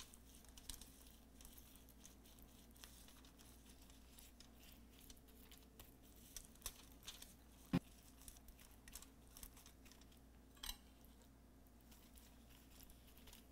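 Near silence, with faint scattered crinkles and clicks from gloved hands rubbing marinade into a fish on a foil-lined tray. There is a sharper click about eight seconds in and another a few seconds later.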